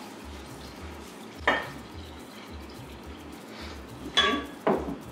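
Brown rum being poured from a glass bottle into a clear measuring cup, with a ringing glass clink about a second and a half in and two more close together near the end.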